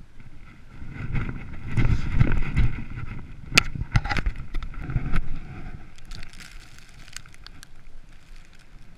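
A hiker's boots crunching and shuffling in snow, with rumbling handling and clothing noise on a body-worn camera and a few sharp clicks in the middle.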